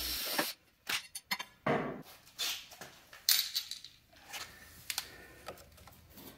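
Steel cover panels of a battery charger's sheet-metal case being unscrewed and handled: scattered clicks, short scrapes and light metallic clatter.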